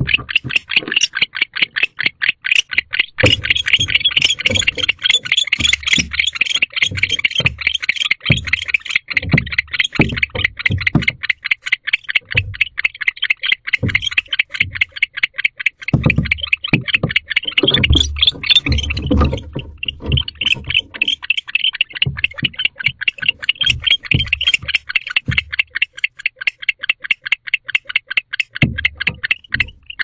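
Agitated male barn owl giving a long, rapid run of high clicking calls that breaks off briefly a little past halfway, in distress at a predator at the nest box. Irregular low thumps from the owl shifting about on the wooden box floor come in between.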